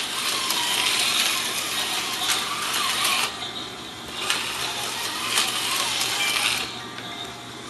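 Small electric toy motors whirring and clattering along plastic track: slot cars running laps and a model train running. The whir wavers in pitch and drops away sharply about three seconds in, comes back, then drops again near the end.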